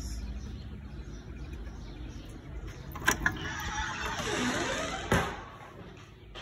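Apartment front door being opened: two sharp latch clicks about three seconds in, then a creak that dips and rises in pitch as the door swings, ending in a single sharp knock just after five seconds.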